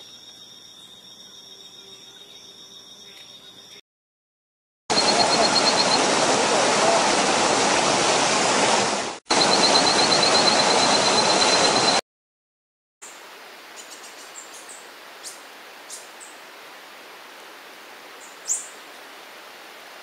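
Loud, even rush of stream water, with a rapid high trill over it and a brief break partway through. Before it comes a faint, steady high insect drone; after it, quieter natural ambience with scattered short high chirps, one louder chirp near the end.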